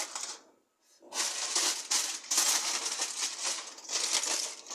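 Aluminum foil crinkling and rustling as it is handled and pressed over a baking pan, in irregular crackly stretches with a brief pause about half a second in.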